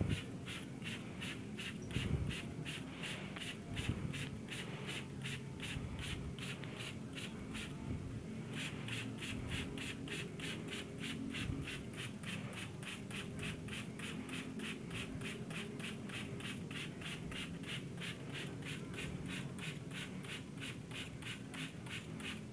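Hand trigger spray bottle misting water over a cage of lovebirds, squeezed in a quick, steady rhythm of about three to four short sprays a second, with a brief pause about eight seconds in.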